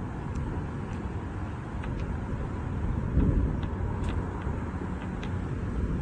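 Outdoor background: a steady, uneven low rumble with a louder swell about three seconds in, and a few faint clicks.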